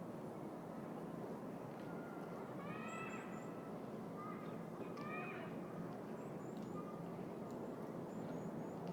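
City park ambience: a steady hum of distant traffic, with a bird giving two short runs of calls, about three and five seconds in, and faint high chirps of small birds.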